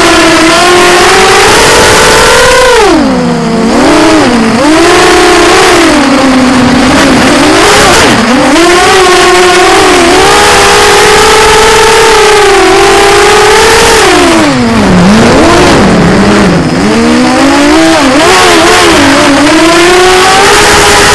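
Electric motors and propellers of a small radio-controlled park-flyer aircraft, heard close up through its onboard camera: a loud whine that rises and falls in pitch with the throttle, dropping low twice and climbing again near the end.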